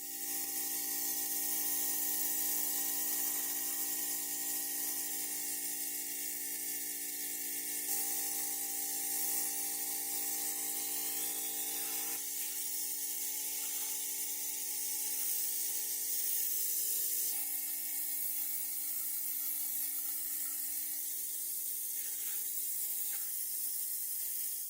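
A small motor running steadily at one constant speed under a strong hiss, with slight changes in tone now and then.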